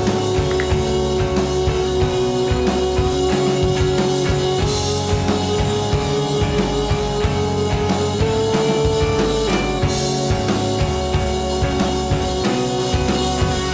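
Background rock music with a steady drum beat and held instrumental notes.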